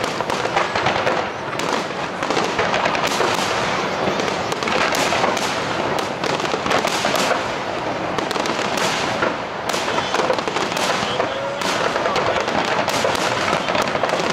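Aerial firework shells bursting in a dense, continuous barrage: many sharp bangs overlapping one another with no pause.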